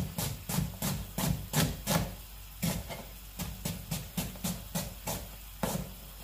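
Kitchen knife slicing an onion on a plastic cutting board: a steady run of knocks of the blade against the board, about three a second, pausing briefly twice.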